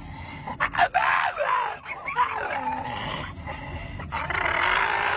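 A dog vocalizing in long, wavering whines and moans, the pitch bending up and down, with a few short sharp sounds just under a second in.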